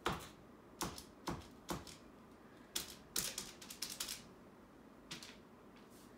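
A paint marker tapped and dabbed against the wall: a string of sharp, irregular taps, with a quick run of them about three seconds in.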